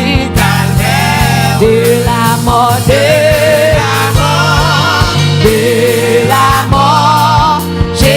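Gospel worship music: voices singing long, wavering notes over a band's steady low chords and a regular beat.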